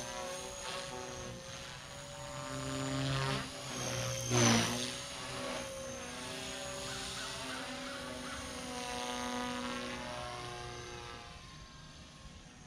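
Blade Fusion 180 Smart electric RC helicopter flying aerobatics, the whine of its rotor and motor rising and falling in pitch as it manoeuvres. It is loudest about four and a half seconds in and fades near the end as it flies off.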